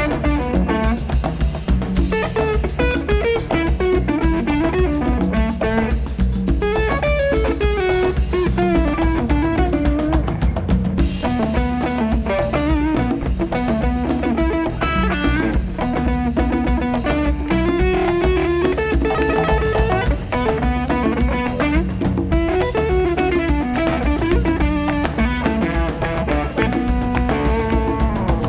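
Live rock band playing an instrumental passage: electric guitar carrying a wandering melody over drum kit and bass, with a steady beat.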